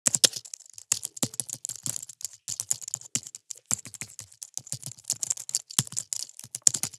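Computer keyboard typing: a rapid, irregular run of crisp key clicks, several a second.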